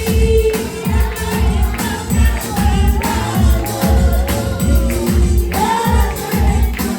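Gospel singing with band accompaniment and a steady beat.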